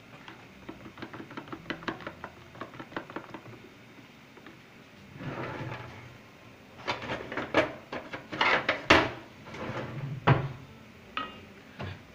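Metal spoon stirring a thick mixture in a plastic tub, with quick light clicks against its sides. From about halfway, louder irregular knocks and clatter of utensils against an aluminium cooking pot, including a wooden spoon being set in the pot.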